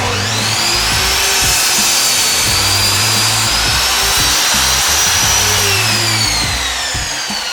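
Harbor Freight electric miter saw switched on: the motor whine rises quickly as the blade spins up, runs loud and steady, then falls away from about five and a half seconds in as the blade winds down.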